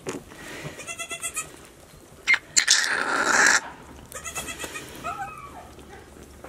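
Newborn Nigerian Dwarf goat kid bleating weakly in short, quavering calls, twice, then once more briefly. A sharp click and about a second of rustling come between the calls.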